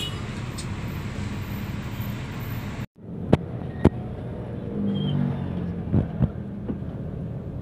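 Intercity bus running, heard from inside the cabin: a steady engine and road rumble. About three seconds in it breaks off abruptly, then two sharp clicks and a few knocks from the cabin follow.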